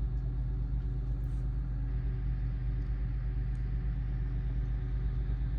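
Engine of the tree crew's truck running steadily at an even, low speed.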